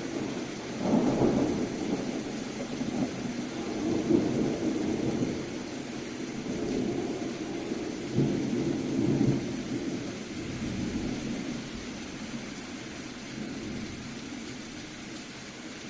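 Thunder rumbling in rolling swells, strongest about a second in, around four seconds and again around eight to nine seconds, then dying away, over a steady hiss of rain.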